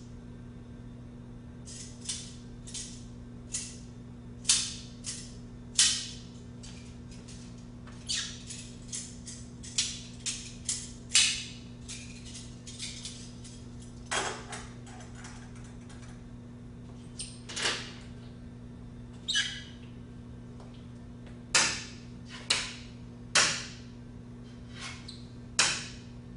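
Irregular short, sharp clicks and squeaks of small objects being handled, about two dozen of them, over a steady low electrical hum.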